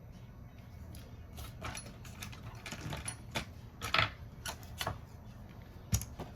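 Irregular small clicks, taps and scrapes of hand tools and parts being handled during a smartphone screen repair, with a denser run of clicks about four seconds in and a single low knock near the end.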